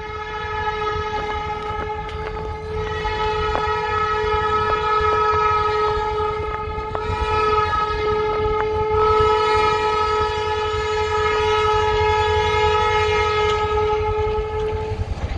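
Air horn of an EMD SD40 diesel locomotive sounding long blasts as it approaches a road crossing: a chord of several notes held nearly without a break, with brief gaps about halfway through, and stopping shortly before the end. Under it runs the low rumble of the train.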